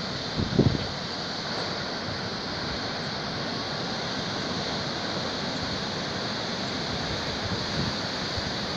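Ocean surf: a steady rush of waves breaking and whitewater washing in, with a brief low gust of wind on the microphone about half a second in.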